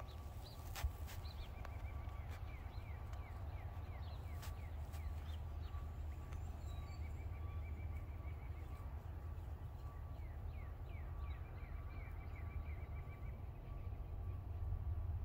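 Small birds chirping in quick series of short, downward-sliding notes, over a steady low rumble and a faint steady high tone.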